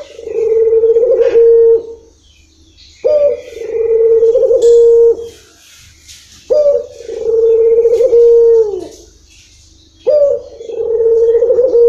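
Caged ringneck dove (local 'puter') cooing: four long, drawn-out coos about every three and a half seconds. Each rises briefly at the start, holds one steady note, then drops away at the end. This is the long-rhythm coo ('irama panjang') that keepers prize in these doves.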